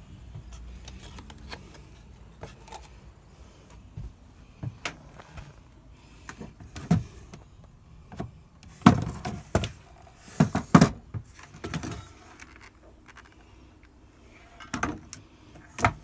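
Irregular knocks, clicks and rattles of things being handled and bumped, with no steady machine sound. A cluster of louder knocks comes a little past halfway, and two more near the end.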